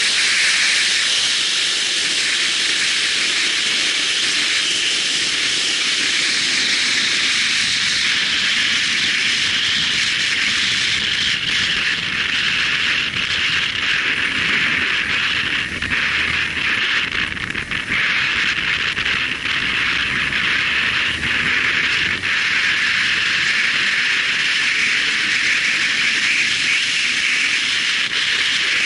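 Steady wind rush buffeting a camera microphone on a moving motorcycle, a loud even hiss, with the bike's engine and road noise faint underneath.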